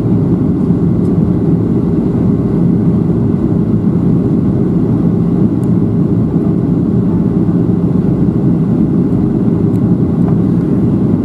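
Cabin noise of a Boeing 737-700 airliner on descent, heard from a window seat over the wing: a loud, steady roar of its CFM56-7B engines and the airflow, with a steady low hum underneath.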